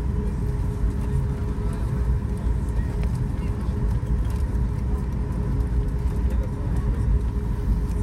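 Boeing 737 MAX 8 cabin noise as heard from a forward window seat: the CFM LEAP-1B engines running with a steady low rumble and a steady hum, with no rise or fall in pitch.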